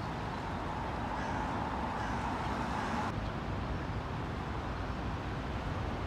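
Steady outdoor town background noise with a low rumble of road traffic. Its hiss changes abruptly about three seconds in.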